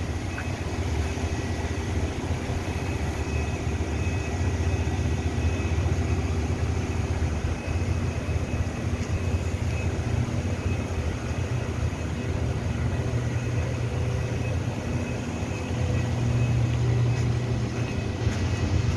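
Steady low drone of running machinery, with faint steady higher-pitched whine tones on top and a slight swell in loudness near the end.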